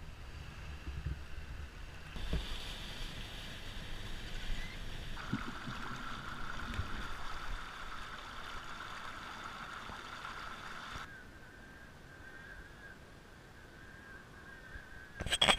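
Faint sound of muddy flash-flood water running, with a faint steady high whine over it from about a third of the way in. A brief loud noise comes at the very end.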